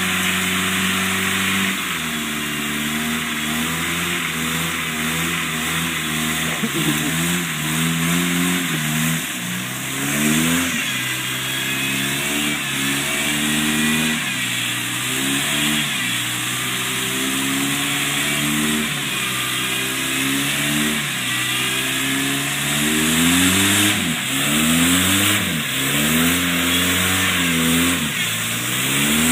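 Jeep Wrangler YJ's engine revving hard again and again, its pitch climbing and dropping every second or two, as the spinning tyres dig through deep swamp mud and throw it up. The engine holds a steady note for the first couple of seconds before the repeated revving starts.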